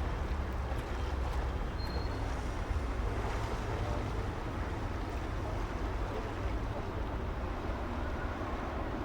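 City street traffic ambience: a steady low rumble of passing traffic, with a brief high chirp about two seconds in.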